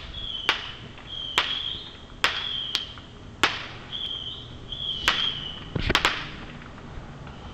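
Fireworks going off: about eight sharp, irregular bangs, each with a short echoing tail, the last two in quick succession near the end.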